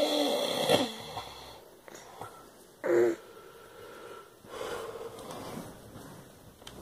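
A man snoring in his sleep: a long, loud snoring breath at the start, a short sharp snort about three seconds in, and a softer snoring breath around five seconds in.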